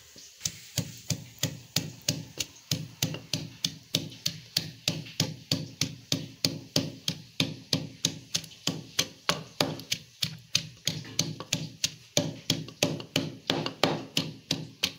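Wooden pestle pounding fresh coriander, mint and chillies into chutney in a stone kundi mortar: a steady run of soft knocks, about four a second.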